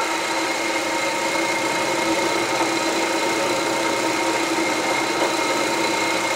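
Milling machine motor switched on just before and running steadily, an even machine hum with a steady whine, as the table is set up to locate hole positions.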